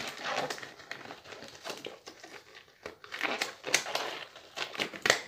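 Disposable gloves crinkling and rustling with irregular small crackles as they are handled and pulled on.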